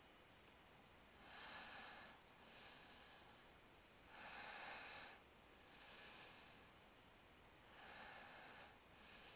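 A man breathing through his nose close to the microphone: three slow breaths, each a louder rush of air followed by a softer one, about three and a half seconds apart, over near silence.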